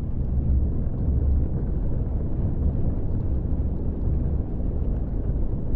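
Thunder: a long, deep rumble, uneven in loudness, with no break.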